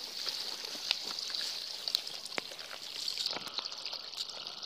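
Steady high-pitched outdoor chorus of small animals, with a few light clicks scattered through it.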